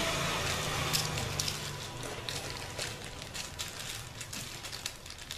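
Clear plastic wrapping crinkling in the hands: a run of small crackles, thickest in the first three seconds and thinning out after.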